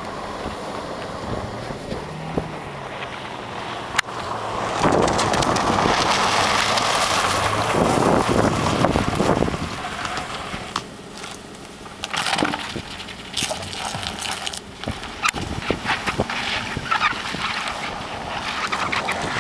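Cars driving on lake ice under wind buffeting the microphone, with a loud rushing noise for about five seconds midway and scattered sharp clicks and crackles in the second half.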